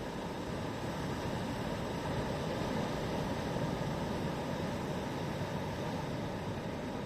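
Sea waves washing onto a beach: a steady rush of surf that swells a little a couple of seconds in, then eases.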